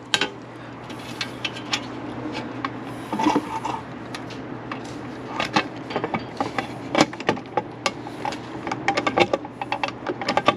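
Hand pop-rivet gun being worked to set a 1/8-inch pop rivet: a string of clicks and scrapes that come thicker and faster near the end.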